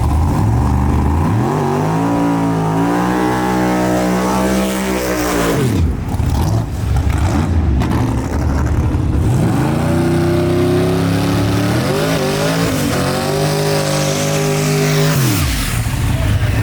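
Drag race car engines at full throttle on two separate runs. Each time the engine note sweeps up fast, holds high for a few seconds, then drops away sharply as the throttle closes.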